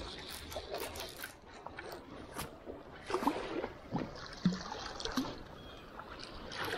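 River water splashing and sloshing as a hooked fish is brought in by hand, with scattered sharp splashes and louder stretches from about three seconds in.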